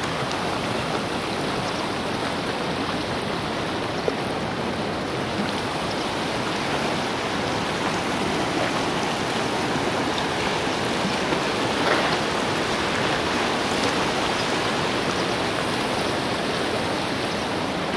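Shallow mountain river flowing over stones: a steady rushing of water.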